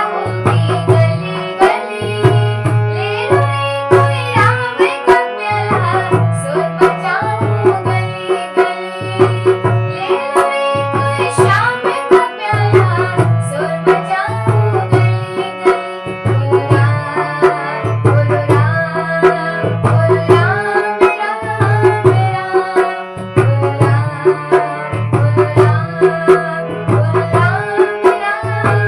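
Hindi devotional bhajan music: melodic instruments over a steady hand-drum beat.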